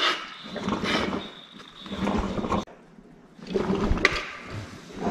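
Bursts of rushing, hissing noise from a leaking underfloor pipe under pressure, picked up as the acoustic leak detector's ground microphone is set down at points on the wooden floor. The noise comes and goes, with a quieter gap a little before the middle.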